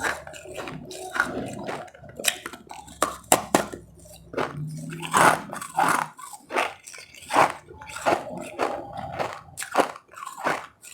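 Powdery ice being bitten and chewed close to the microphone: a dense run of irregular crisp crunches, several a second.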